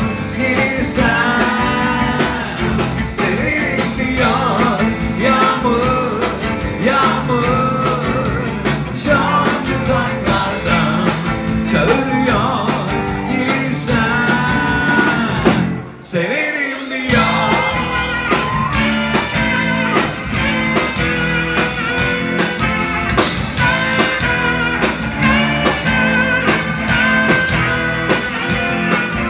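Live rock band playing a song, with electric guitars and drums. The sound dips briefly about halfway through.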